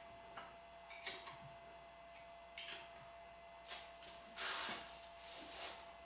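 Light metal clinks and taps from the cast-iron Famco No. 3 arbor press being taken apart by hand. About four and a half seconds in comes a short scraping rub as the toothed ram is drawn up through its bore.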